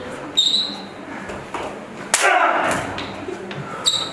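Strikes and thuds of a staged fight: a sharp hit about half a second in and another near the end, each followed by a brief high ring, and a louder impact with a longer noisy tail about two seconds in.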